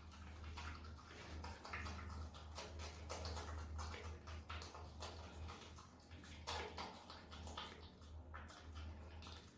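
A marmot chewing soft durian flesh: irregular wet smacking and munching clicks, over a low steady hum.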